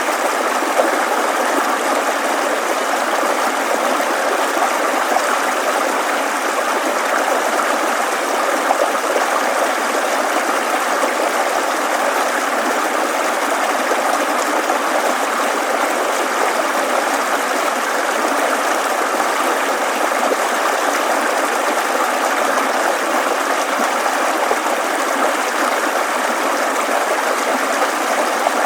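Steady murmur of a shallow stream flowing over stones, a continuous natural water sound with no rise or fall.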